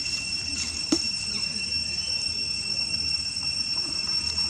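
Steady high-pitched drone of insects, with a single sharp click about a second in.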